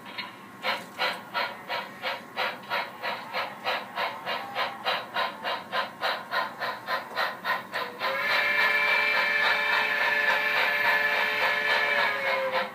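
HO-scale model steam locomotive's DCC sound decoder chuffing at about three beats a second. About eight seconds in, a long multi-tone steam whistle sounds for roughly four seconds, and the chuffing resumes near the end.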